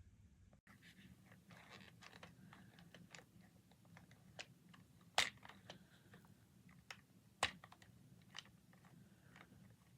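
Faint scattered clicks and crackles, like light handling noise, with two sharper clicks about five and seven and a half seconds in.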